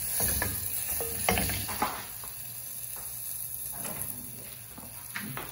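Butter melting and sizzling in a stainless steel pot while a wooden spatula stirs it, scraping and knocking against the pot. The knocks come most often in the first two seconds.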